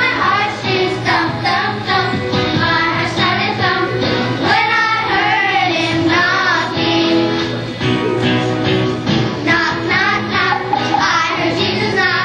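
A song with young voices singing over instrumental music with a steady beat.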